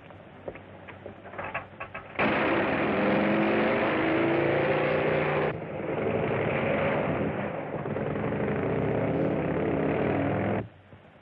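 A few light clicks. Then, about two seconds in, the loud noise of a train running at speed starts abruptly, with a steady pitched tone in it. It changes sharply midway and cuts off suddenly near the end.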